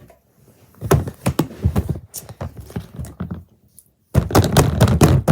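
A quick run of knocks and thuds from objects being handled and set down, in two spells: the first starting about a second in, the second about four seconds in.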